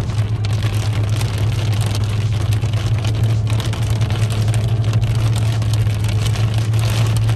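Car cabin noise while driving: a steady low drone from the engine and tyres on the road, under a constant hiss.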